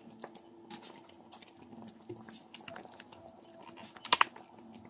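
Thick white pasta sauce simmering in a pot, giving faint scattered pops and clicks over a low steady hum, with a sharper double click about four seconds in.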